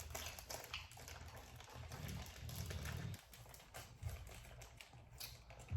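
Faint chewing and mouth sounds from someone eating soft birria tacos: many small irregular wet clicks and smacks over a low background hum.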